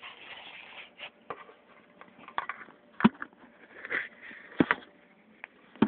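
Packaging being handled, rustling and crinkling, with three sharp knocks, about three seconds in, a second and a half later, and at the very end.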